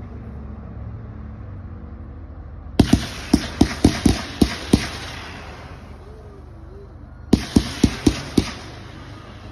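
Hammer and Anvil 'Shooting Starz' consumer firework firing shot after shot, each pop launching a coloured star skyward. There is a rapid volley of about nine sharp pops in two seconds starting about three seconds in, then a second volley of about six pops near the end.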